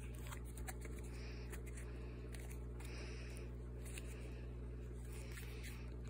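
A plastic screw cap being twisted off a cough syrup bottle by hand: scattered small clicks and scrapes. Soft breaths come through the nose every second or so, over a steady low hum.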